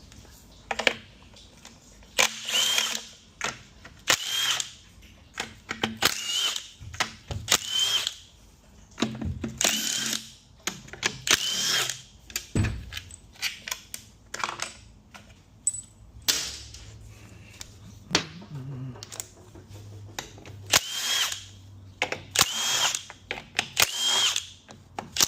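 Cordless power driver spinning bolts out of a transmission case in a long series of short bursts, each under a second with a brief whine that rises and falls, with the odd knock of metal parts in between.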